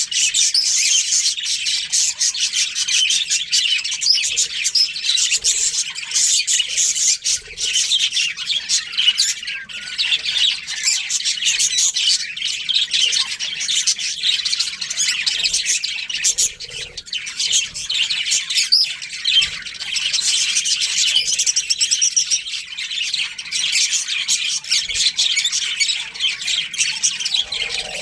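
A colony of budgerigars chirping and chattering all together, a dense unbroken mix of many birds' high chirps and squawks.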